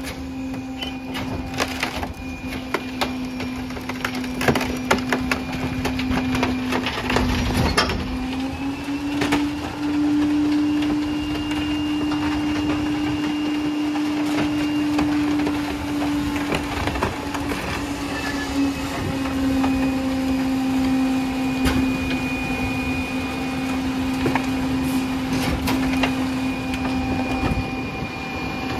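Pak-Mor rear loader garbage truck's packer crushing plywood and construction debris in the hopper, the wood cracking and splintering in sharp snaps over the first several seconds. Under it the diesel truck's engine and hydraulics hum steadily, the pitch rising about nine seconds in and dropping back about ten seconds later.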